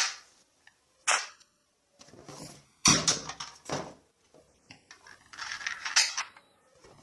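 Plastic toy guns being handled and worked: a handful of sharp, irregular clicks and snaps from their cocking and firing mechanisms, with fainter handling rustle between them.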